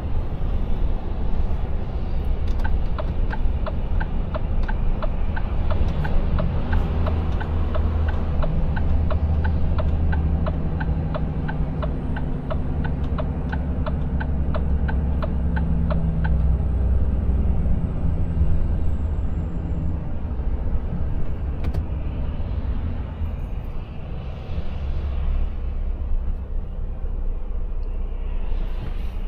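Cab interior of a Volvo FH Aero truck on the move on a wet road: steady low engine and road rumble with tyre noise. A regular ticking, about twice a second, starts a few seconds in and stops about halfway.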